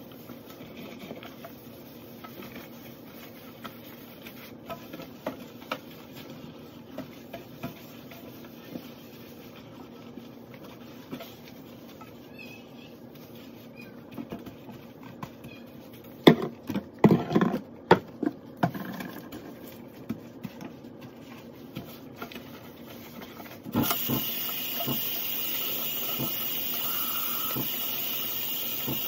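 Rubber-gloved hands handling things in a stainless-steel kitchen sink, with soft light taps and rubs, then a cluster of louder knocks a little past halfway. Near the end the kitchen faucet is turned on and water runs steadily into the sink over the gloved hands.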